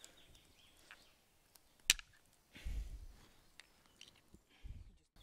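Flint knapping: a hammerstone striking a flint core to strike off a sharp flake, one sharp crack about two seconds in among a few lighter taps, with a couple of dull low thumps.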